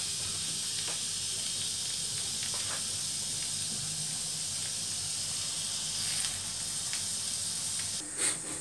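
Steady hiss of a gas hob burner and a pot of chicken pieces in water coming to the boil, throwing up scum. Near the end the hiss drops and there is a short knock as the pot's lid is lifted off.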